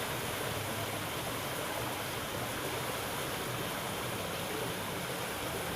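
Steady rushing of running water, an even hiss without breaks.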